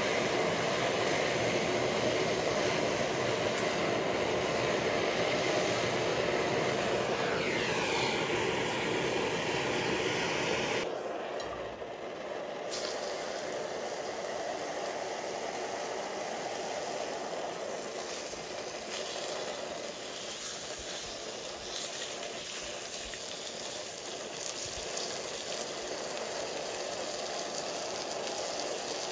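Pork chops sizzling as they cook, a steady hiss that drops a little quieter about eleven seconds in.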